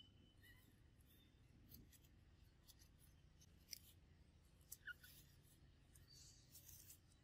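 Near silence: faint outdoor ambience with scattered soft clicks and ticks.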